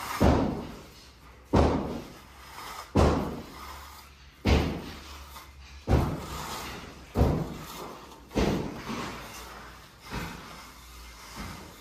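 Heavy hammer blows on masonry, nine in a steady rhythm of about one every second and a half. Each blow is a sharp knock that dies away quickly in the room, and the last two are weaker.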